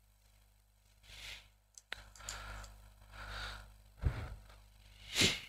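Rustling and scraping handling noises close to the microphone, with a sharp knock about four seconds in and a louder rustle near the end, over a steady low hum.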